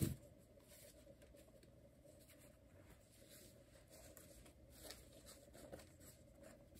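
Near silence: room tone with a few faint rustles of tarot cards being handled, most noticeable about five seconds in.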